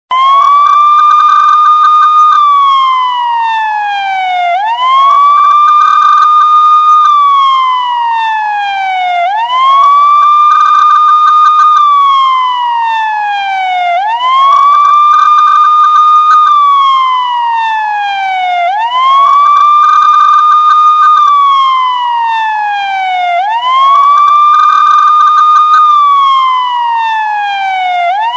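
Police siren wailing: a loud tone rises quickly, holds high for about two seconds, then slides slowly down, over and over, about every four and a half seconds.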